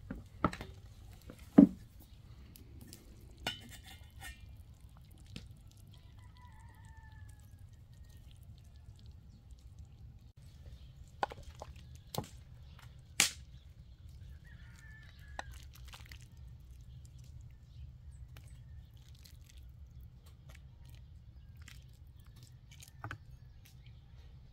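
Kitchenware sounds: a metal pot lid is lifted off and set down with a sharp clank, then a metal ladle knocks and clinks against the pot and bowl a few times as soup is served, over a low steady rumble.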